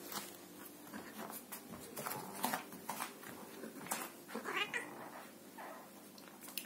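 Hairless cat meowing in several short calls while it leaps at a string toy, the loudest call about halfway through, with knocks and scrabbling from its paws in between.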